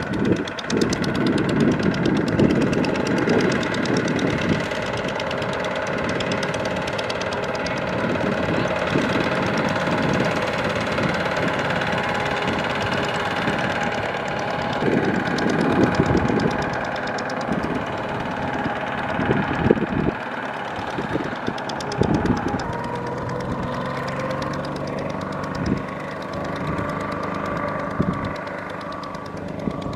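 Single-cylinder diesel engine of a Kubota two-wheel walking tractor chugging steadily under load as it pulls a trailer cart through mud. About two-thirds of the way through, the engine note rises and holds higher.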